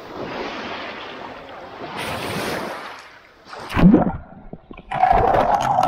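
Small waves breaking and washing over a pebble shingle beach, heard close at the water's edge. A little past halfway the microphone goes under the water: a sudden low thump, then a loud muffled underwater rush with clicks of pebbles.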